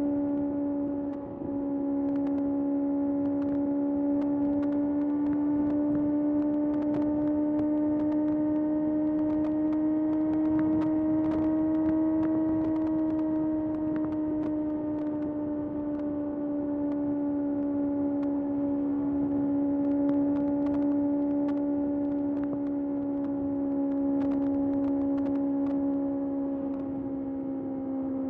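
Kawasaki ZX-6R's inline-four engine holding high revs while riding, a steady high-pitched tone. Its pitch climbs slowly for about twelve seconds, then eases back down. There is a brief dip about a second in.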